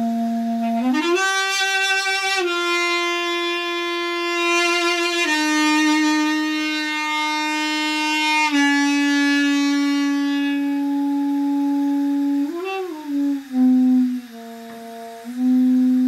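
Duduk playing a slow melody of long held notes with a reedy tone. It slides up to a higher note about a second in, then steps down through several long notes, with a short wavering turn and a few quicker notes near the end.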